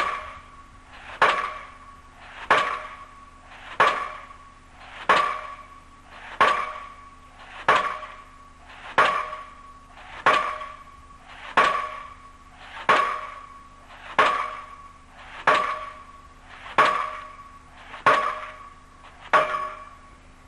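Diesel pile hammer on a crane's leader driving a precast concrete pile: a sharp ringing blow about every 1.3 seconds, evenly spaced, each dying away before the next.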